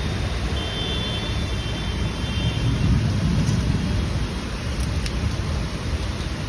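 Road traffic noise: a steady wash of vehicle engines and tyres with a low rumble that swells around three seconds in, and a faint high-pitched tone in the first half.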